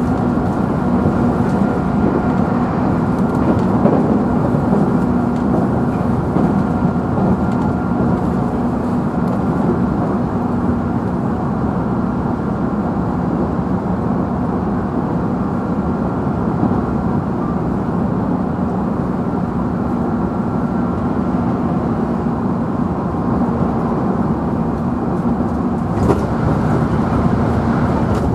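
JR Central 311-series electric train running steadily at speed, heard inside the motor car: a constant rolling rumble with a steady low hum and a faint high whine from the traction motors and gears.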